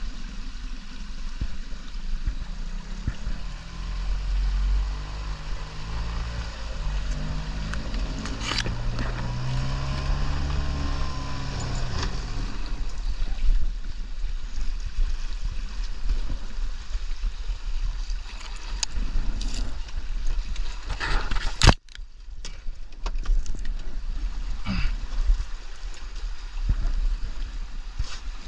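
Small boat on the water: a low rumble and water noise throughout, with a motor's hum rising and falling in pitch for several seconds. A sharp click comes about two-thirds of the way in, followed by a brief dip in level.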